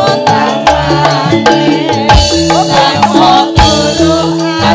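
Live campursari music: a singer with a wavering voice over electric keyboard and drums keeping a steady beat.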